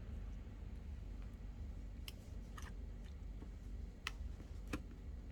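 Four faint, sharp clicks as the screen's flex-cable connectors are pressed into their sockets on an iPhone 12's logic board, the first about two seconds in. A steady low hum sits underneath.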